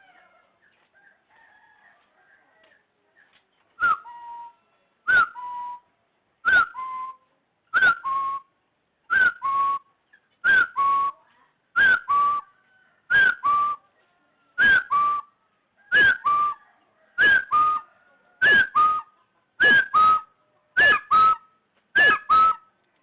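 A young jungle fowl hen calling over and over, starting about four seconds in, roughly one call every second and a quarter. Each call is a sharp note sliding into a short held tone, and from about the middle the calls come in pairs. It is a decoy call for luring wild jungle fowl into a trap.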